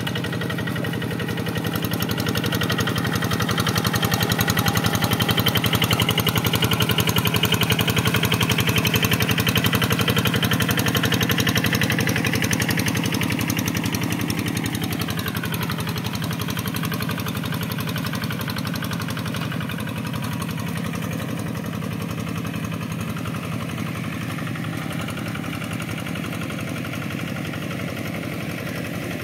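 Two-wheel walk-behind hand tractor's single-cylinder diesel engine running steadily with a fast, even chugging beat while it works through a flooded rice paddy, levelling the mud. It is loudest for the first dozen seconds, then eases off a little as the tractor moves away.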